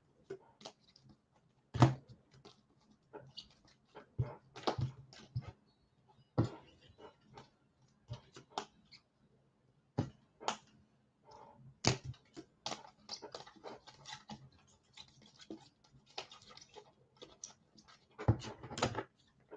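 Scattered light clicks and taps at irregular intervals, with a louder cluster of them near the end.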